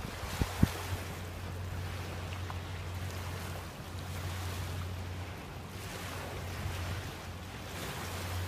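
River Thames water washing and lapping, with wind on the microphone and a steady low hum underneath. Two short knocks come in the first second.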